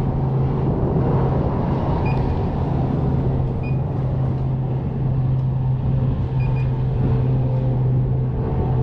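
A steady low engine hum that does not change, with a few faint light ticks over it.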